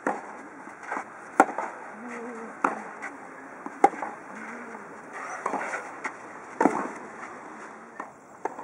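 Tennis rally: rackets striking the ball back and forth in sharp hits about every 1.2 to 1.3 seconds, alternating louder and softer as the near and far players hit, with a slightly longer gap near the end.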